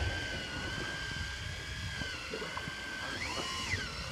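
A small motor whining steadily, its pitch stepping up and then back down a little after three seconds in, over a low rumble and water noise.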